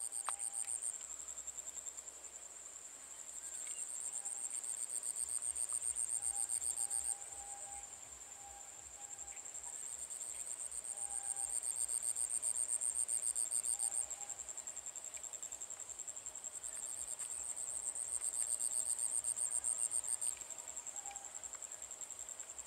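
Insects chirring in a steady high-pitched chorus, with a rapidly pulsing trill that swells and fades in three waves.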